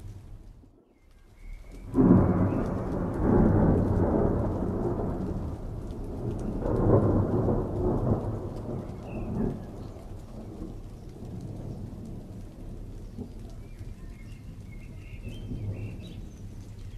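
Thunder: a sudden loud peal about two seconds in, rolling on with a second swell, then dying away to a low distant rumble.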